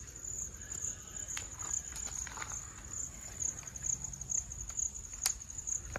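Insects trilling: a steady, finely pulsing high-pitched drone, over a faint low rumble. A single sharp click sounds about five seconds in.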